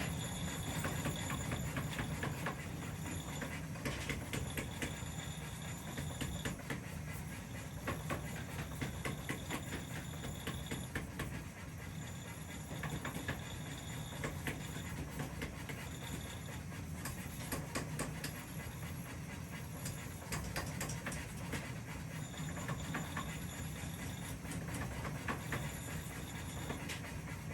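Workshop machinery running steadily with a low hum, under many irregular clicks and knocks, and a high whine that cuts in and out every second or two.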